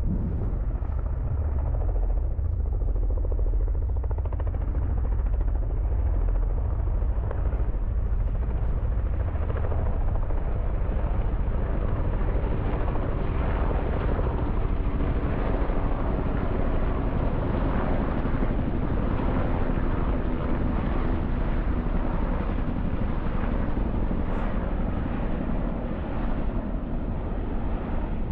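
Low-flying helicopters passing over, a steady drone of rotors and engines that swells in the middle and eases slightly near the end.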